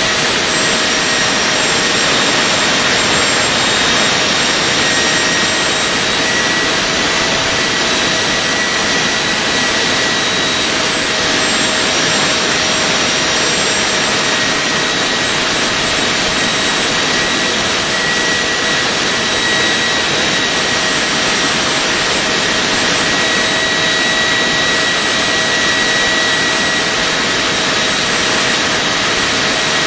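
Handmade turbojet engine with a 135 mm compressor running steadily at constant speed: a loud, even rush of exhaust with several steady high-pitched whines over it.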